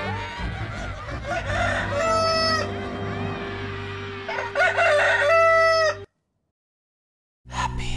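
Rooster crowing twice over the closing held notes of the music, the second crow louder and longer. Everything cuts off abruptly about six seconds in.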